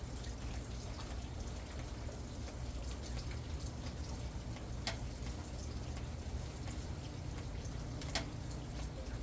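Rain falling, with irregular drops tapping and pattering, two of them louder, over a steady low rumble.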